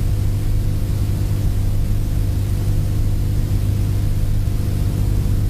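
Steady low electrical hum with an even hiss over it, with no speech or music: the recording's own background noise.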